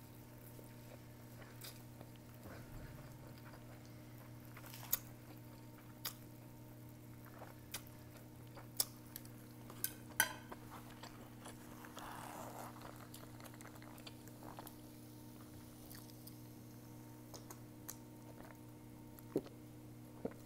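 A person chewing mi goreng noodles with Spam and fried egg close to the microphone, with scattered sharp mouth clicks and smacks. A steady low hum runs underneath.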